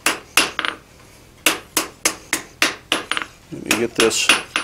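Hand hammer striking a hot drawknife blade, mild steel with a forge-welded W1 tool-steel edge, on a steel anvil: sharp metallic blows. A few blows are followed by a pause of about a second, then a steady run of about three to four blows a second. These are light blows straightening out the blade's bevel.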